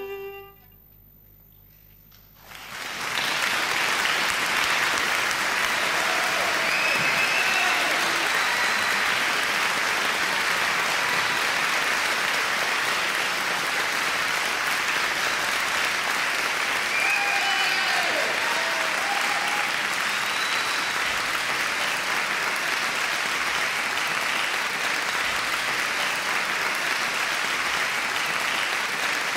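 Violin music ends on a held note about half a second in; after a short pause, an audience applauds steadily for the rest of the time, with a few whoops and cheers among the clapping.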